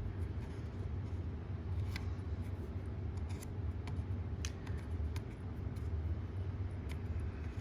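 Scattered small, sharp clicks and taps of a hex driver worked by hand, turning a screw into an RC car's brake caliper. A steady low hum runs underneath.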